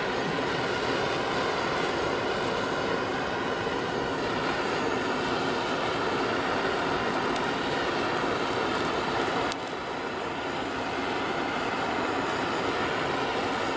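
Handheld gas torch on a gas cartridge burning with a steady hissing flame, singeing the remaining down off a plucked duck. The hiss drops a little about nine and a half seconds in.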